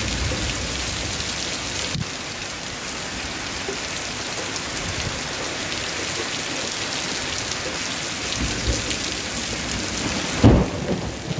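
Heavy rain pouring steadily on leaves and ground, with low rolls of thunder. About ten seconds in comes one louder thunderclap.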